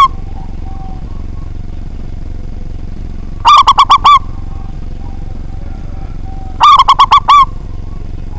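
Zebra dove (perkutut) cooing: two phrases of about five quick, rhythmic notes each, roughly three seconds apart, over a steady low hum.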